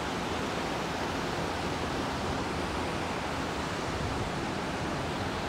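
Steady rush of river water pouring over a dam spillway into whitewater below.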